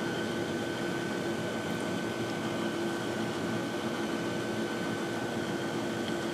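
Steady background hum with a faint, constant high whine and a lower steady tone.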